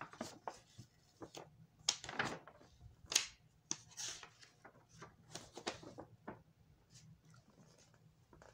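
Paper pages of an old book being handled and turned: a run of irregular short rustles and soft taps, thinning out toward the end.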